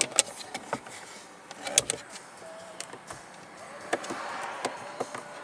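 A series of sharp clicks and light knocks from switches and trim being handled in a car's cabin, with a brief faint whine about halfway through.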